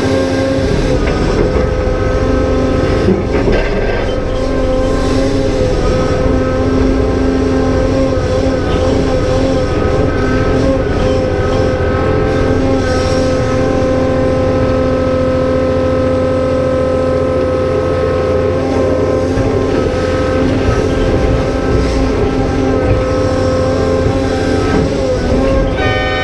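Cat 390F excavator's C18 diesel engine and hydraulic pumps working hard at a steady, unchanging pitch.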